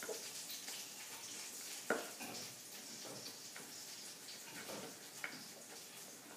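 A few faint clicks and knocks of puzzle pieces against a toy clock shape-sorter puzzle and the high-chair tray, over quiet room tone. The sharpest knock comes about two seconds in.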